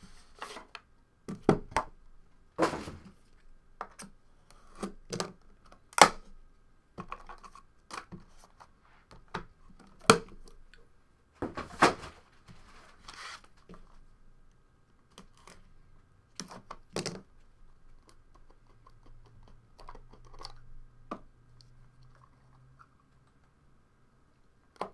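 A hobby box of trading cards being opened and handled: cardboard sliding and scraping, with a series of sharp taps and knocks as the box parts and the card case are set down on the table.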